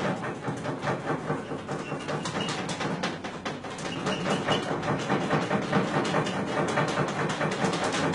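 Bristle brush scrubbing oil paint onto canvas in rapid short strokes, several scratchy strokes a second.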